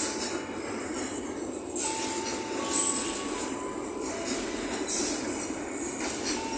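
Container freight train's flat wagons rolling past: a steady rumble of wheels on rail with thin high steady tones over it, and sharp louder hits about two, three and five seconds in.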